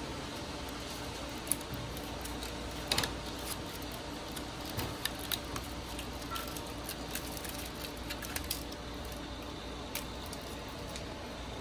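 Thin plastic protective film crinkling and crackling as it is peeled off a speaker grille and handled, in irregular small clicks with a sharper crackle about three seconds in, over a steady background hiss.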